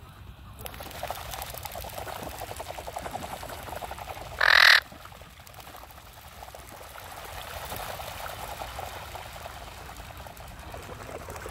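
Small dark waterbirds flapping and pattering across the water surface as they take off from the bank, a rapid fluttering patter that comes in two spells. Just after four and a half seconds there is a single loud, short, harsh cry.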